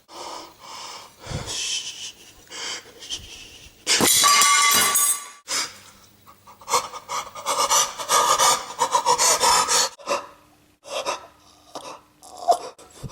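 Edited mix of a man's crying sound effect: panting, sobbing breaths and rasping noises in uneven bursts, with one long loud stretch about four seconds in.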